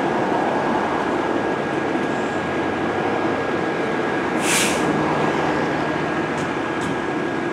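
Diesel engine of a 2019 Seagrave Aerialscope tower ladder truck idling steadily, with a short burst of air hiss about four and a half seconds in.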